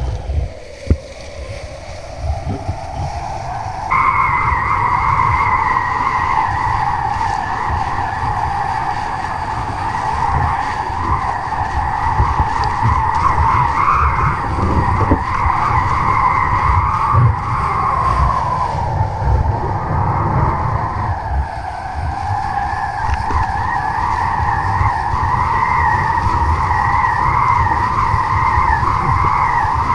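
High whistling tone of wind over a camera mounted on kite lines, wavering in pitch, low at first and jumping higher about four seconds in, over a steady low rumble of wind buffeting the microphone.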